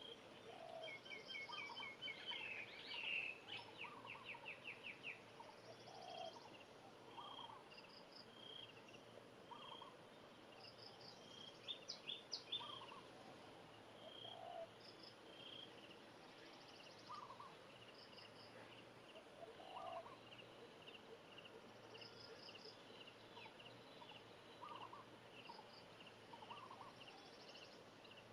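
Faint, repeated short bird chirps and calls, with a quick rapid run of chirps about three seconds in.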